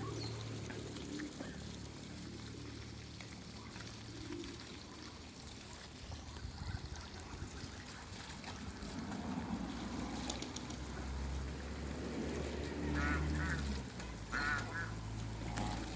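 Waterfowl honking, in a few clusters of short repeated calls in the second half, over a low steady hum.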